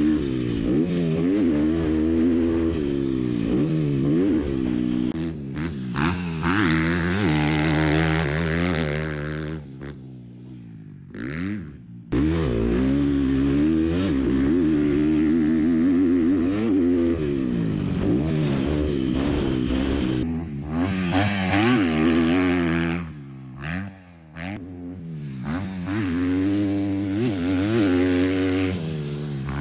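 2025 KTM SX-F 250 motocross bike's single-cylinder four-stroke engine being ridden, the revs climbing and dropping over and over as it accelerates and rolls off, with two short lulls about ten and twenty-three seconds in. The brand-new engine is being run in.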